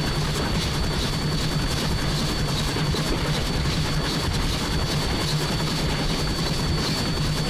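1910 Swedish-built E2 steam locomotive under way, giving a steady running rumble with a constant thin high whine above it.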